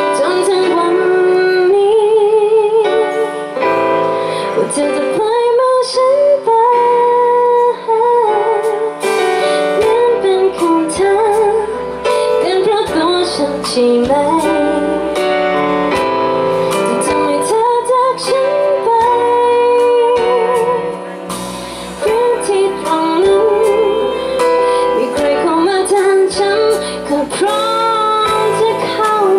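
A woman singing a sad Thai pop ballad live, holding long notes with vibrato, over band accompaniment.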